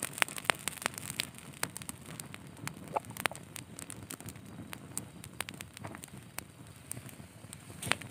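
Dry pine needles burning under a stack of stones, crackling with many sharp, irregular snaps and pops over a low steady rush.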